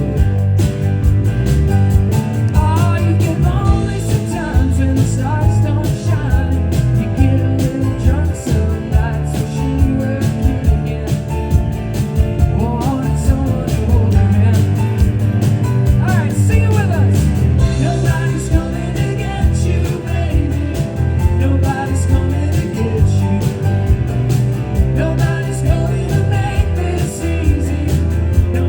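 Live rock band playing a song, with drums, bass, guitar and singing.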